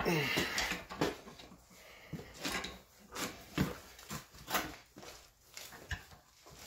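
Irregular metallic clanks and knocks of smithing tools working a twisted 5160 coil-spring bar while it is being untwisted, with a short falling whine right at the start.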